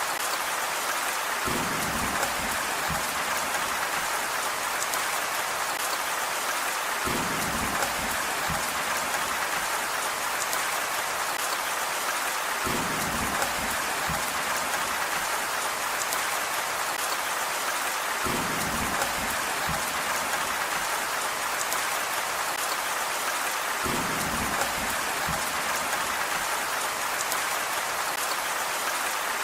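Steady rain falling, a dense even hiss, with a low rumble coming in about every five to six seconds.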